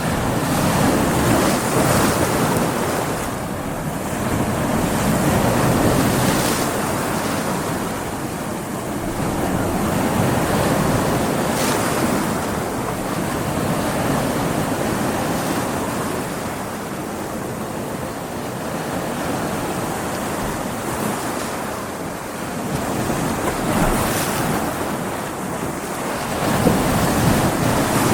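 Ocean waves breaking against rocks, a continuous rushing surf that swells and subsides every few seconds, with occasional sharp splashes, and wind on the microphone.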